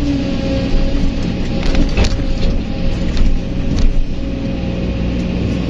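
Kobelco SK200 excavator working: diesel engine running under load with a steady pitched whine, and a few sharp knocks and scrapes as the bucket digs into stony dirt.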